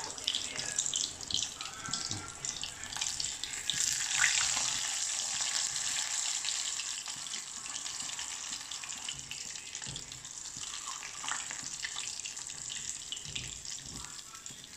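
Marinated needlefish pieces deep-frying in very hot oil in a small wok, a steady sizzling hiss that swells about four seconds in and then slowly dies down.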